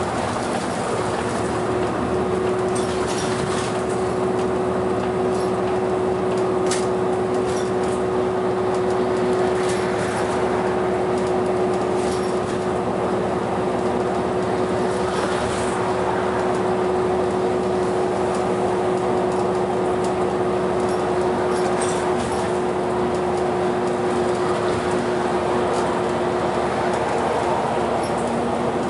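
Cabin noise of a city bus cruising on an expressway: a steady mix of engine and road noise with a constant hum tone running underneath. A few short clicks or rattles stand out here and there.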